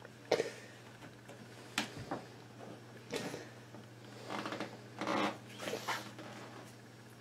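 Irregular scraping and rustling with a few sharp knocks, over a steady low hum.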